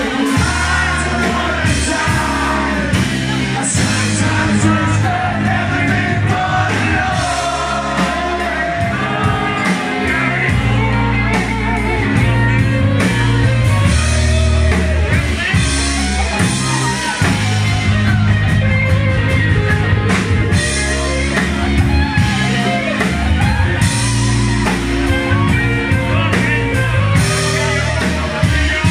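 Live rock band playing, with a singer over guitar, a steady bass line and drums.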